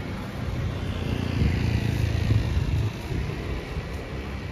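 A motor vehicle driving past close by on a city street. Its engine rumble swells from about a second in, is loudest around two seconds, and drops away before three seconds, over steady traffic noise.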